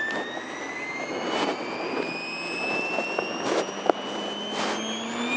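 Electric motor and rotor of a Compass 7HV RC helicopter spooling up on the ground: a whine that rises slowly and steadily in pitch as the head gathers speed, with a few brief rushing noises.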